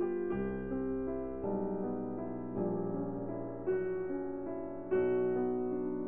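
Slow, soft background piano music, a new chord struck about once a second with the notes left to ring.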